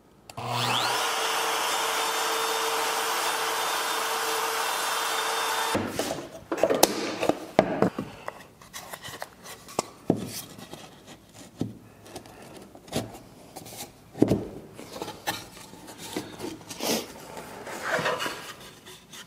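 Trim router in a mortising jig starts with a brief rising whine and runs steadily with a high hum for about five seconds, then stops abruptly. After it come scattered wooden knocks and rubbing as plywood boards with dominoes are fitted together by hand.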